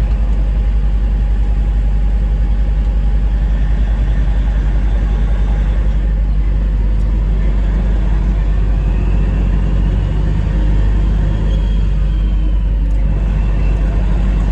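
Semi truck's diesel engine running, heard from inside the cab as a steady low rumble.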